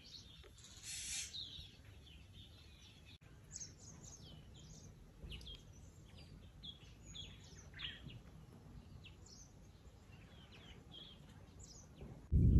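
Small wild birds chirping, many short high calls scattered over a faint outdoor background. A brief hiss comes about a second in, and just before the end a loud low rumble cuts in suddenly.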